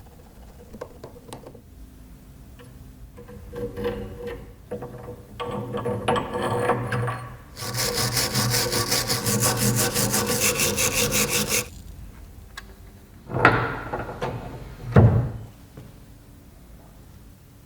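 Rubbing and scraping on wood. A fast, even rasping run lasts about four seconds in the middle, and two short scrapes follow near the end.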